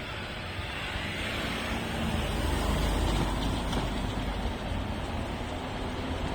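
JR 383 series electric train running past: a steady rumble of wheels on rails that swells about two seconds in and then holds.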